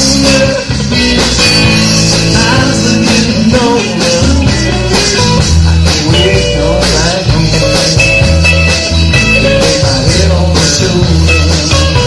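Band music in a blues-rock style: electric guitar lines over bass and drums with a steady beat.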